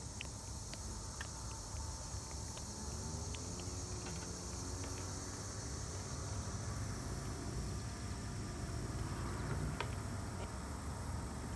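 Steady, high-pitched insect chorus over a low rumble, with a few faint clicks.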